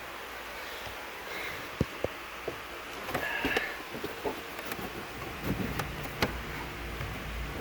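Handling noise as a transmission shift cable is worked through under a car's floor carpet: scattered light clicks and knocks with rustling, over a steady background hiss. There is a brief high squeak about three seconds in.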